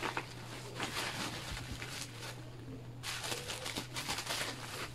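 Bubble wrap around a ring light and tripod crinkling and rustling in repeated bursts as it is handled and unwrapped.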